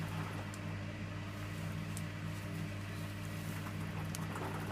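Electrolux W455H commercial washing machine running its main wash: a steady low motor hum as the drum turns, with a few faint clicks.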